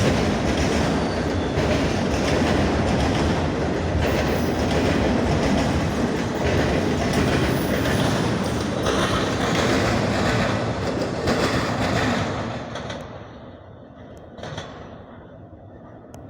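Norfolk Southern freight cars rolling past, wheels clacking over the rail joints. About 13 seconds in the train's end passes and the sound falls away to a much quieter rumble.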